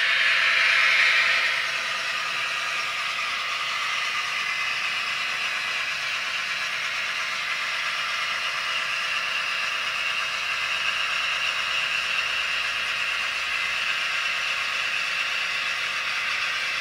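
Piko class 118 model diesel locomotive with a sound decoder, playing a diesel engine sound through its small speaker over the whir and rattle of the model running on the track. Louder in the first second or two, then steady.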